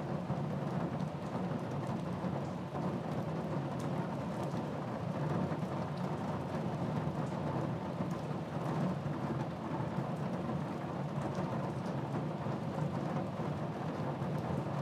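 Steady rain with a low rumble of thunder underneath.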